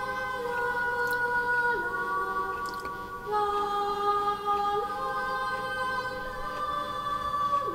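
Soft background music of slow, sustained choir-like chords, with no beat, changing every second and a half or so.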